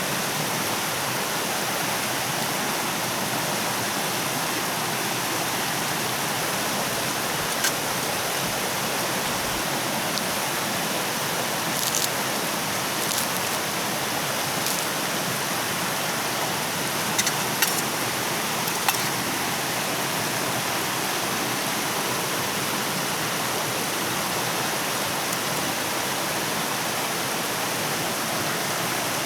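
Steady, even rushing water noise, with a handful of sharp clicks at scattered moments through the middle.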